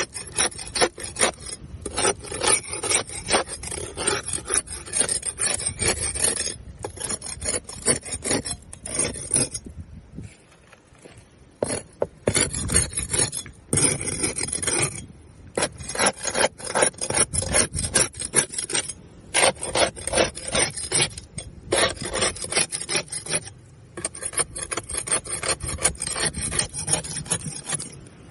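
Barnacles being scraped off a boat hull: runs of quick, rough, rasping scrape strokes, broken by short gaps and by one pause of about two seconds near the middle.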